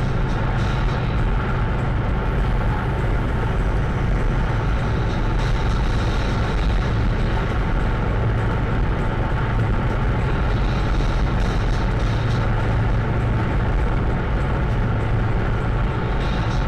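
Steady drone of a heavy truck's diesel engine and tyre and road noise, heard inside the cab while cruising at highway speed.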